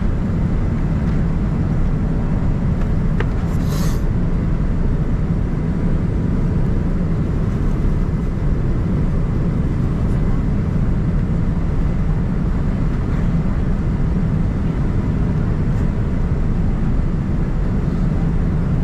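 Steady in-flight cabin noise of a Boeing 787-9 Dreamliner heard from a window seat over the wing: a constant low rush of airflow and GEnx-1B turbofan engine noise. A brief hiss comes through about three and a half seconds in.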